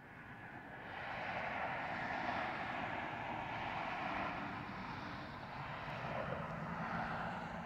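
Airplane flying over: a steady rush of engine noise that swells about a second in and holds.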